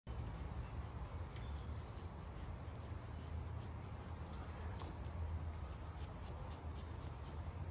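Scratchy rubbing and rustling of a hand stroking and scratching a wombat's belly fur, over a low steady rumble.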